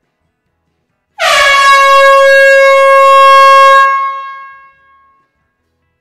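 Air horn sounding one long, loud blast in an enclosed hall. It starts suddenly about a second in with a brief drop in pitch, holds one steady tone for about two and a half seconds, then dies away over about a second.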